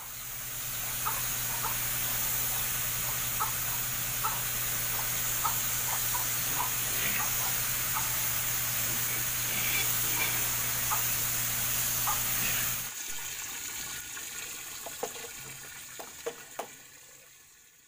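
Power sprayer running: a steady motor hum under the hiss of the high-pressure water jet, with short high squeaks scattered through. About thirteen seconds in, the motor and the spray cut off, leaving a fainter hiss and a few more squeaks.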